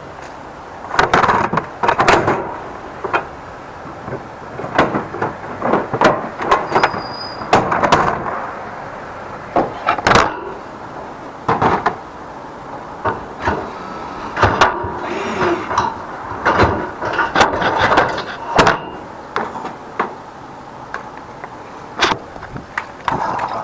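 Irregular knocks, clanks and rattles of equipment being handled at a work van, with a brief high squeak about seven seconds in.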